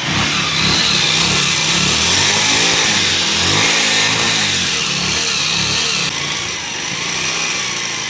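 Bajaj Pulsar 150 DTS-i's single-cylinder engine running just after starting, revved up and down a few times, then settling back to a steadier idle about six seconds in. It makes an all-over rattling noise, a fault that repairs at two or three shops have not cured.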